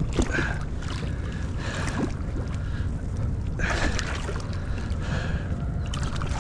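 Water sloshing and splashing around a small boat, with wind buffeting the microphone and several short splashy bursts.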